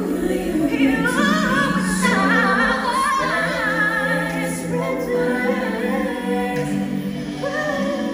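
Woman singing a pop ballad live into a handheld microphone, with vibrato and quick runs high in her range over sustained accompaniment chords.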